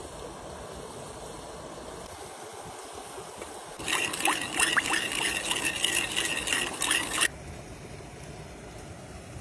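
Wooden spoon stirring sauce in a wooden bowl: quick clicks and clacks of wood on wood with wet sloshing, for about three seconds from around four seconds in, stopping suddenly. Under it, the steady rush of a small waterfall.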